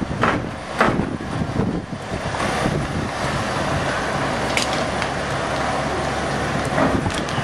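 Semi truck's diesel engine running as it pulls a tri-axle trailer slowly over ground-protection flooring panels, with a few sharp knocks.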